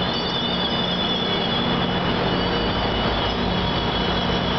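EMD F59PH diesel locomotive rolling past at close range, its 12-cylinder EMD 710 engine running with a steady drone, over a high, wavering squeal from the wheels.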